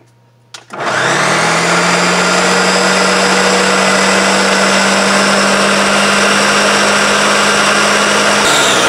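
Countertop blender switched on after a click, spinning up to a steady motor whine and running for about eight seconds while mixing flax seeds, egg replacer and water into flax eggs. Near the end it is switched off and the motor winds down, falling in pitch.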